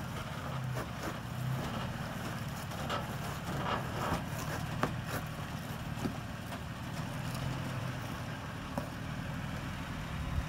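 Toyota Tacoma pickup engine running steadily at low revs as the truck crawls up a rock slab in very low 254:1 double-low gearing, with a few sharp clicks along the way.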